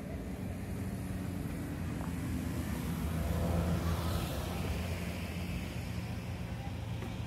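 A motor vehicle passing on a nearby road: a low steady hum that swells to its loudest about halfway through and then fades.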